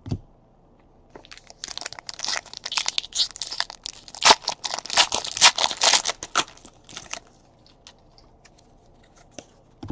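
A trading-card pack wrapper being torn open and crinkled: a run of crackling rips lasting about five seconds, starting a second or two in.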